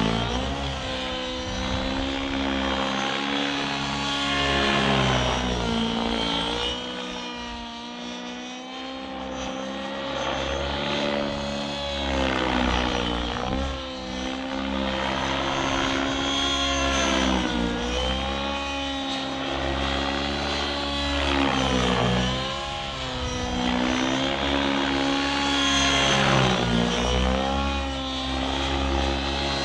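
An RC helicopter's OS 91HZ-R two-stroke nitro glow engine running at speed in flight, with the whoosh of its rotor blades. The engine note rises and falls over and over as the helicopter manoeuvres.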